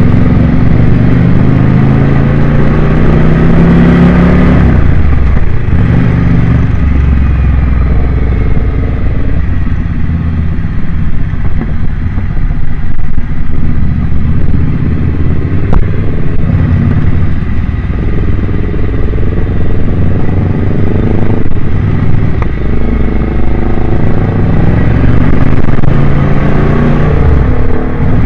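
Motorcycle engine heard close up from the rider's own bike, accelerating through the gears. Its pitch climbs and drops sharply at each shift, about three times, with a softer cruising stretch in the middle.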